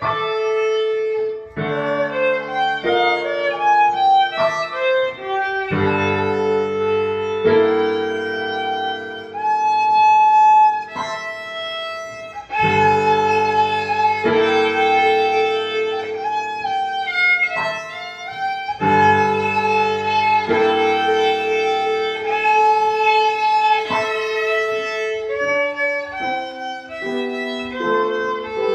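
Violin being bowed, playing a quick-moving melody of short notes, runs and some held notes, with steady low notes sounding underneath for long stretches.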